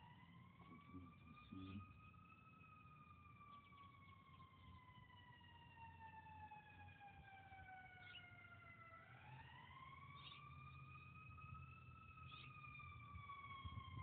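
Faint emergency-vehicle siren on a slow wail: the pitch rises for a couple of seconds, then falls slowly for about six, rising again about nine seconds in and falling once more.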